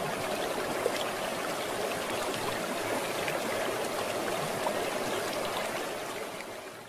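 Flowing stream water, a steady rushing trickle with a few faint ticks, fading out near the end.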